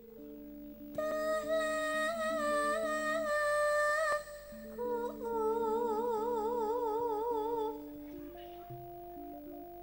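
A woman singing long held notes, one with a steady vibrato, over sustained keyboard chords. The voice drops out a little before the end, leaving only the keyboard.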